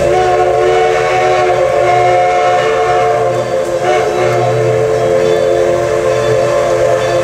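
Steam locomotive whistle of Everett Railroad's ALCO No. 11 blowing one long, steady chord of several tones, sounding for the grade crossing as the train approaches.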